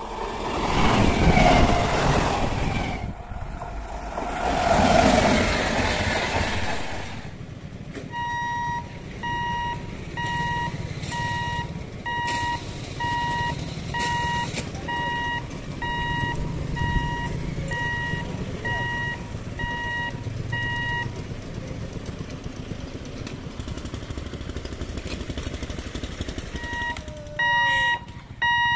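For about the first seven seconds, an electric local train (EMU) passes close by with a loud rush of noise that swells twice. Then a level crossing's electronic warning buzzer beeps steadily at about one and a half beeps a second for some twelve seconds, over the low rumble of idling motorcycles and traffic, and starts beeping again near the end. The warning sounds while the boom barriers are moving.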